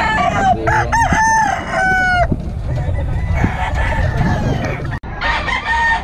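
Several gamecock roosters crowing, their calls overlapping in the first two seconds over steady low background noise, then a noisier jumble, with crowing starting again near the end.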